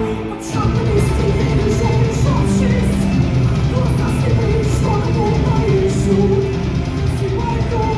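Loud heavy rock music with electric guitar, drums and singing. It drops out for a moment right at the start, then comes back in full.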